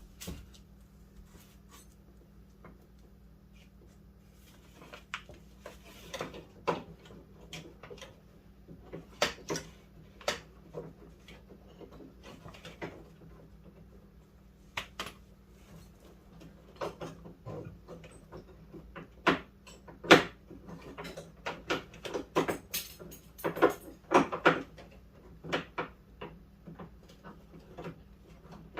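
Irregular metallic clicks, taps and clunks of hand tools and the old door handle being worked loose inside a Fox-body Ford Mustang's door, busier and louder in the last third. A faint steady hum sits underneath.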